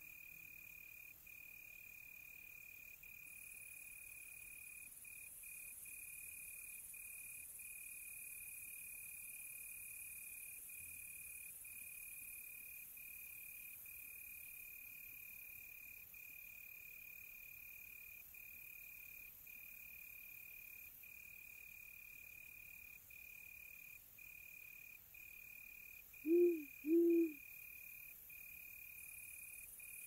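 Cricket chirping in a steady, high trill broken by brief gaps, over a faint high insect hiss. About 26 seconds in, an owl gives two short low hoots in quick succession, the loudest sound here.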